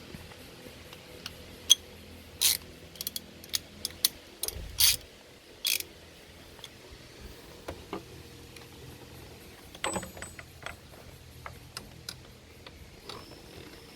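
Irregular metallic clicks and clinks of hand tools working on the engine, a cluster in the first six seconds and another about ten seconds in.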